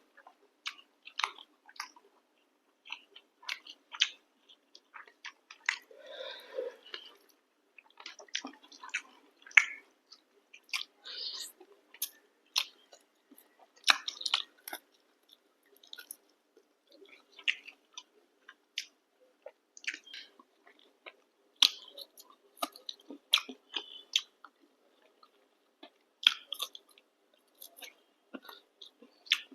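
Close-up chewing and biting of someone eating chicken curry with chapati: irregular wet smacks and clicks of the mouth at work.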